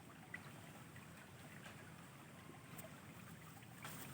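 Near silence: a faint, steady hiss of flowing river water with a few tiny ticks, and a brief louder scratchy rustle near the end.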